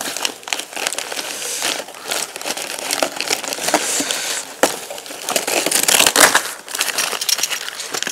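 Shipping packing on a motorcycle crinkling and rustling as it is handled and pulled off, with many sharp crackles and clicks.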